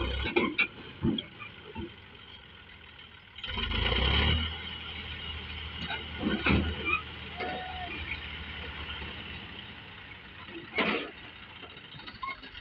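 Tractor engine running while its hydraulic tipping trailer is raised to dump soil. The engine swells louder for about a second, around 3.5 s in. Scattered knocks and clatters sound throughout.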